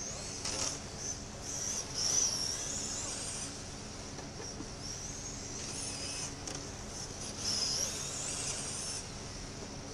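Radio-controlled late model race cars whining at a high pitch as they circle a small oval, the pitch rising and falling as they speed up on the straights and slow for the turns. The whine gets louder about two seconds in and again near the end.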